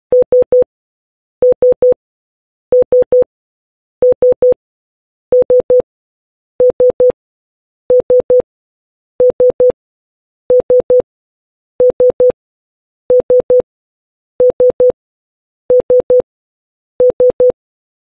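Morse code letter S (dit-dit-dit) sounded as a pure electronic tone: three short beeps, the group repeated about fourteen times at an even pace with a pause between groups.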